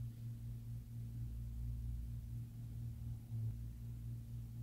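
A steady low hum with no distinct events.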